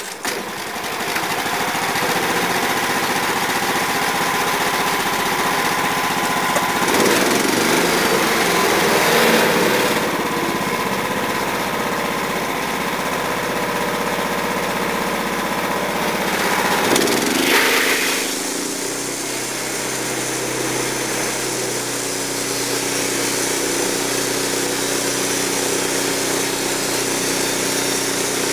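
Gasoline engine of a Wood-Mizer LT15 band sawmill running steadily. It gets louder and harsher for a few seconds around seven seconds in, and its note settles into a different steady pitch about eighteen seconds in.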